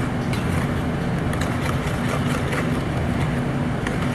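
A steady low motor-like hum runs throughout, with faint light clinks of a utensil stirring the coconut-milk sauce in a bowl.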